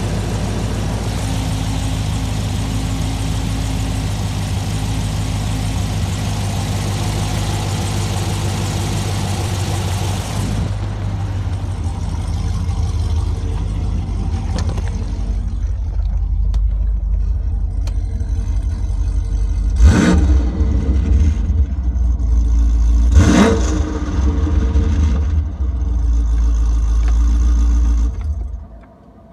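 Chevrolet SS sedan's 6.2 L LS3 V8 idling steadily, heard first under the hood and then from inside the car. Two short throttle blips come about twenty and twenty-three seconds in, and the engine is shut off near the end.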